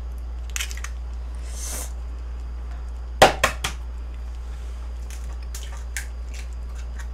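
Tableware clinking and knocking: scattered light clicks, with three sharp knocks in quick succession about three seconds in, over a steady low electrical hum.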